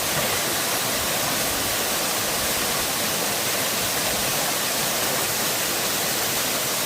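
Erawan Falls' cascade rushing steadily, a dense, even hiss of falling water.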